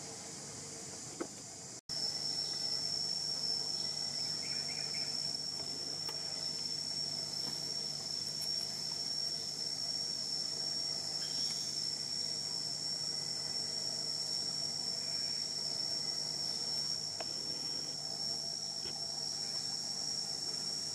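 Steady high-pitched drone of insects, one unbroken tone that starts abruptly about two seconds in.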